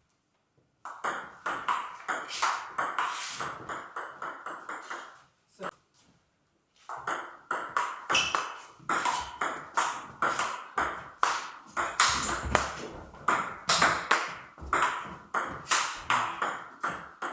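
Table tennis rally: the ball clicks quickly back and forth off the table and the bats, one of them a Tibhar Absolute Carbon blade with Lion Roar and Spinlord Keiler II rubbers. The clicks run for about four seconds, stop for about a second and a half, then a second rally clicks on.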